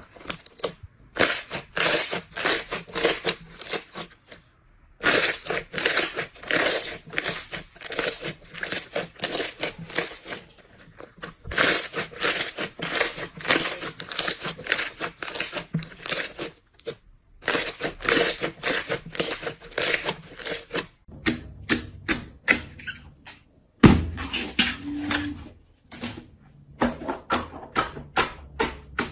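Slime being squeezed and pressed close to the microphone: rapid crackling and popping clicks in bursts of a few seconds with short pauses between. After about 21 s the sound turns softer and lower, with one sharp loud hit a few seconds later.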